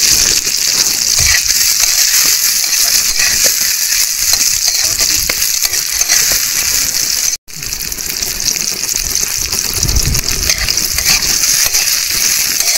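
Shellfish frying in hot oil in a pan: a steady sizzle with clinks and scraping as the shells are stirred. The sound cuts out for an instant about seven seconds in.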